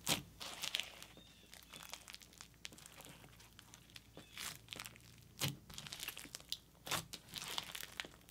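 Hands squishing, pressing and stretching a soft clay slushy bead slime, giving irregular sticky crackles and pops, with louder pops right at the start, past the middle and near the end.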